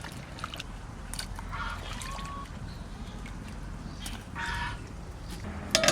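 Two short bird calls, about a second and a half in and again after four seconds, with a few faint clicks and a sharp clatter right at the end.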